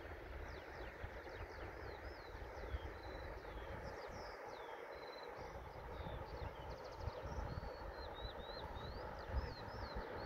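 Small birds chirping, a string of quick whistled notes that rise and fall, over a steady hiss of wind and distant surf with wind rumbling on the microphone.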